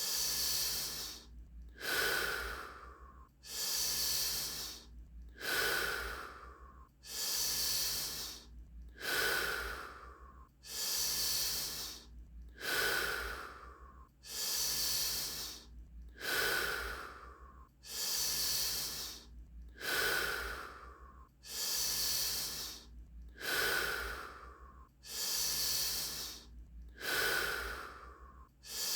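A person doing Wim Hof power breathing: deep, even breaths in and out in a steady rhythm, one full breath about every 1.8 seconds.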